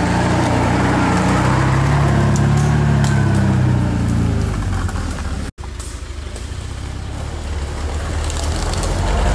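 Off-road 4x4's engine running under load and revving as it works through mud, its pitch rising a couple of seconds in. The sound drops out abruptly about halfway through, then the engine comes back and grows louder.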